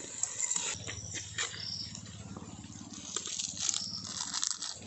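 Raw rooster pieces sizzling with a steady hiss as they go into a hot pot of frying onions and chillies, with scattered small clicks. A low rumble runs under most of it.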